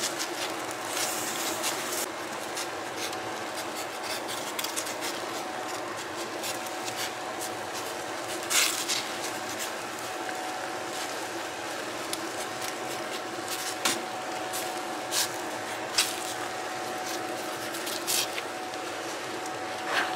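Steady rushing hiss of a 55-gallon drum wood-stove evaporator at work: maple sap at a hard boil in its steel pans while a fan blows on the hardwood fire, with a faint steady hum underneath. A few sharp clicks stand out, about eight, fourteen and sixteen seconds in.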